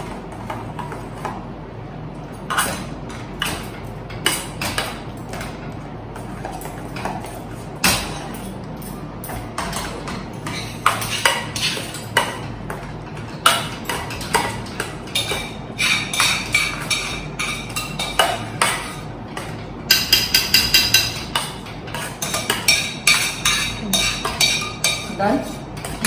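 Wire whisk knocking, clinking and scraping against a stainless steel pot while mashing boiled potatoes into a puree. The strikes come faster from about halfway, with a quick flurry of clanks and ringing metal near the end.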